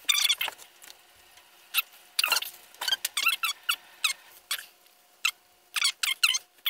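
A series of short, high-pitched squeaks coming in irregular bursts, several a second at times, with a brief lull about a second in.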